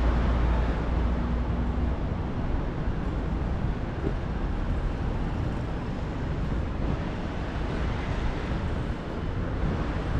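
Steady outdoor background noise with a low engine hum that fades out about two seconds in.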